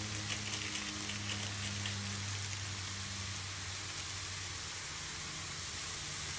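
Sliced bitter gourd and tomato sizzling in an aluminium wok: a steady frying hiss with fine crackles in the first couple of seconds. A low hum underneath fades out about halfway through.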